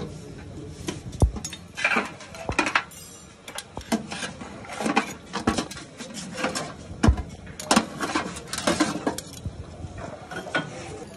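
Steel ladle and long spoon clinking and scraping against a steel serving tray and the rim of a large steel cooking pot while trotters and broth are ladled out. Irregular sharp clinks and knocks, with a few low thuds.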